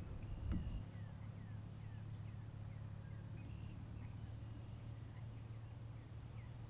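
Small birds chirping, a string of short falling chirps, over a steady low rumble. A dull thump comes about half a second in.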